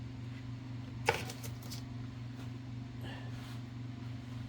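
A sharp click about a second in, followed by a few lighter ticks, as small metal parts of a typewriter carriage are handled during reassembly, over a steady low hum.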